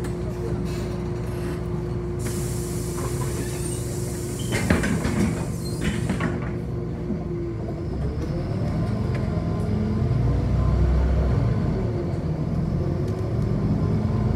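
City bus heard from inside the cabin: a steady engine and drive hum, with a few knocks about four to six seconds in. From about eight seconds the drive rises in pitch and gets louder as the bus pulls away and picks up speed.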